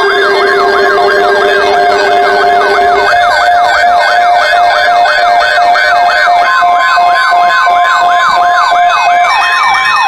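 Electronic alert siren sweeping quickly downward in pitch over and over, about three sweeps a second, layered with steady electronic alert tones; a lower steady tone drops out about three seconds in.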